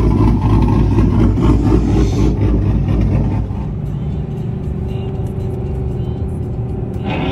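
Pickup truck engines running, with music playing along. About three and a half seconds in, the sound becomes quieter and steadier.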